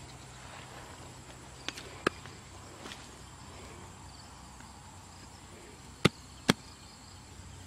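A few sharp knocks or clicks while a man digs by hand in wet mud, two loud ones close together about six seconds in and smaller ones around two seconds in. Under them is a faint, steady insect trill.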